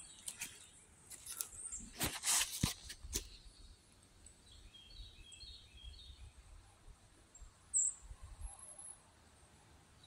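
A few footsteps in the first three seconds, then a small bird calling a quick run of high chirps about halfway through, and one sharp high chirp near the end.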